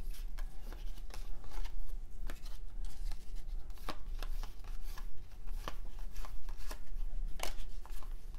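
A stack of 1993 Topps baseball cards being thumbed through by hand, the stiff cards sliding and flicking against each other in a run of quick, irregular clicks.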